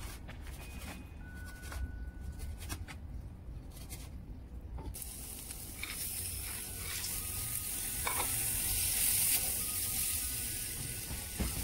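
A knife chopping a tomato on a cutting board, a handful of separate chops. About five seconds in it gives way to a steady sizzle: diced potatoes frying in oil in a wok as cauliflower is added and stirred with a wooden spatula.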